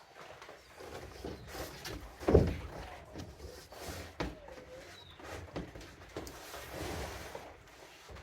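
Sheets of plywood being handled: scattered wooden knocks and thumps, the loudest a heavy thump about two seconds in.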